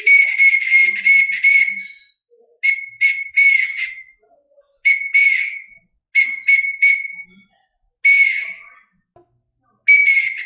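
A whistle blown in Morse code: short and longer blasts with a slight warble, in several groups with pauses between them, spelling out the word "fast" (..-. .- ... -).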